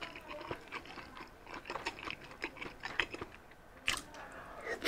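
Close-miked eating sounds: soft clicks and scrapes of a wooden spoon scooping pork sisig with egg, then a bite with wet mouth sounds near the end as the spoonful goes in.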